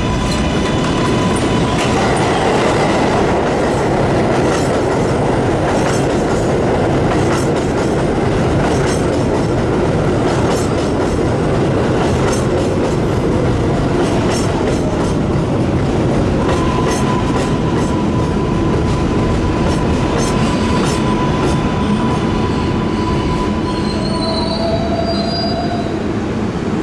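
R188 subway train running at speed, heard from inside the car: a loud, steady rumble of wheels on rail with scattered clicks from rail joints. A thin, steady squeal comes and goes, once for several seconds past the middle.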